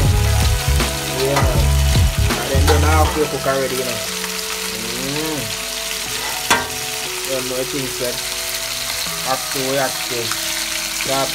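Whole fish frying in hot oil in a metal pot, a steady sizzle, with one sharp tap about six and a half seconds in. Music with a deep bass plays over the first three seconds and fades to faint tones.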